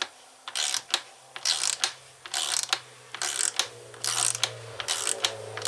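Ratchet wrench clicking in short back-and-forth strokes, a little under one a second, backing out a fastener on a Stihl MS 460 Magnum chainsaw. A low steady hum comes in about a second in and grows near the end.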